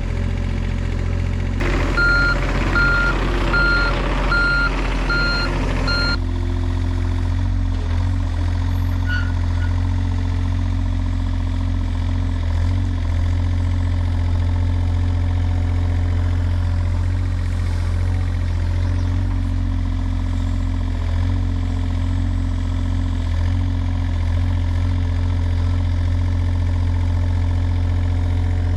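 A machine's engine running steadily. For a few seconds near the start it works harder while a reversing alarm sounds a string of short, evenly spaced beeps.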